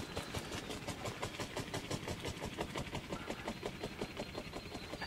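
Wild turkey shot by an arrow flopping on the ground, its wings beating in a rapid, even rhythm of about eight strokes a second.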